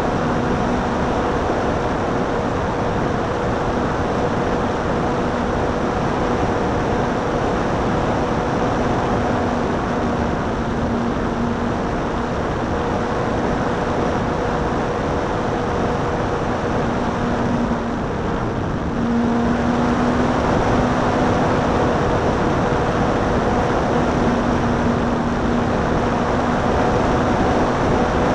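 Parkzone P-51 RC plane's electric motor and propeller running steadily in flight, with heavy wind rush over a wing-tip keychain camera's microphone. The motor's hum falls away briefly about two-thirds of the way through, then comes back a little louder.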